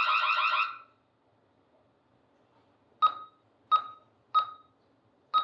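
Security alarm sounder pulsing rapidly, cut off less than a second in; after a pause, four short single-pitch keypad beeps as the passcode is keyed into the alarm panel.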